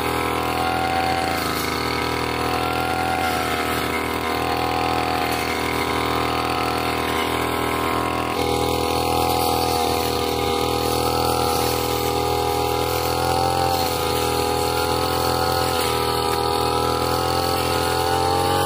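Petrol brush cutter with a circular blade, its engine running steadily while the blade cuts through grass and woody saplings. The engine's pitch wavers slightly up and down.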